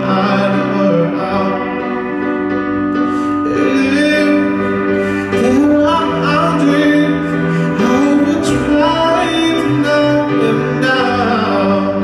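A male singer singing with live cello and guitar accompaniment: an acoustic pop performance, the voice sliding between sustained notes over held cello tones.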